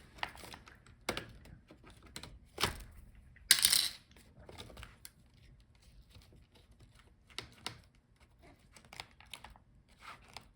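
Scattered light clicks and taps of small plastic and metal laptop parts being handled during disassembly, with a brief scrape about three and a half seconds in.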